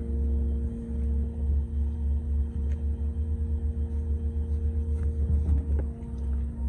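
Concrete line pump's engine running steadily with a low, pulsing rumble, a few faint clicks over it.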